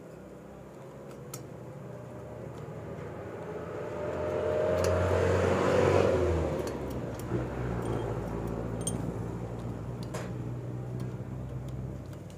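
A passing motor vehicle: its engine hum grows louder to a peak about six seconds in, then slowly fades. Small faint clicks of metal carburetor parts being handled sound throughout.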